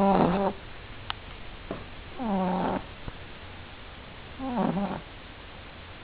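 French Bulldog puppy snoring in its sleep: three short, pitched snores about two seconds apart, each falling slightly in pitch, the kind of snore a flat-faced breed's short airway produces.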